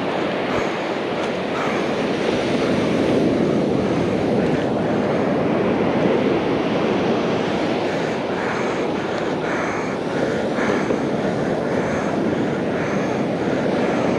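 Rough, storm-driven surf breaking on the beach, with wind buffeting the microphone: a steady, loud rushing noise.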